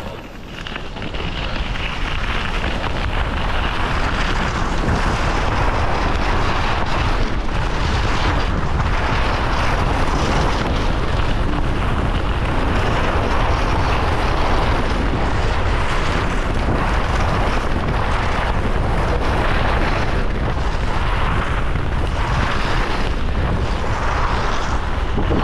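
Wind buffeting an action camera's microphone while skiing fast downhill, with the hiss of skis on snow. It builds over the first couple of seconds as the skier picks up speed, then holds loud and steady, swelling and easing every couple of seconds.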